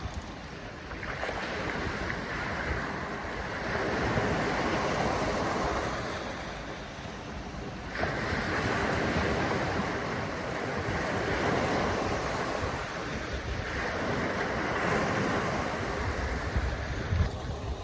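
Wind buffeting the microphone over the rush of river water, swelling and easing in gusts every few seconds, with a sudden rise about eight seconds in.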